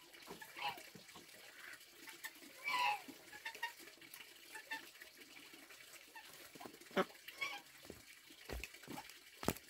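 Domestic waterfowl calling twice, about three seconds apart, over rustling of leafy greens and small handling noises, with two sharp thumps near the end.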